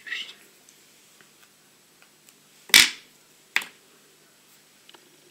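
Two sharp clicks a little under a second apart, the first the louder, with a faint tick later, as fly-tying tools and materials are handled at the vise.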